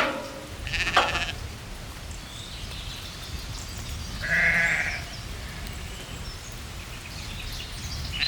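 Sheep bleating in a flock of ewes and young lambs: a loud call right at the start, another about a second in and a third about four and a half seconds in.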